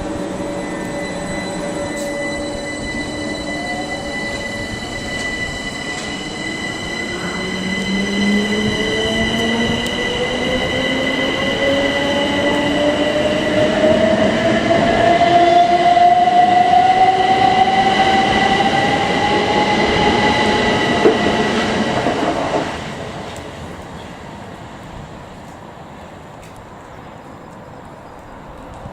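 Electric multiple unit pulling away: its traction motors give a whine that rises steadily in pitch as the train gathers speed, over a steady high-pitched tone. The sound drops away suddenly about three-quarters of the way through, leaving a quieter background.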